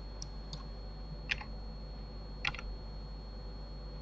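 Clicks from a computer keyboard and mouse: a couple of faint ones, then two louder clicks about a second apart, over a steady low electrical hum.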